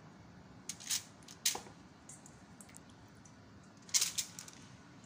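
Aluminium foil lining a baking tray crinkling briefly a few times as wet fish fillets are pressed onto it by hand, the loudest crinkle about four seconds in.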